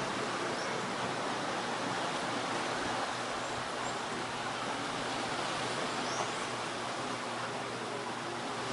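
Steady seaside ambience: an even rushing noise of surf on the rocky shore below, with a couple of faint, brief high bird chirps.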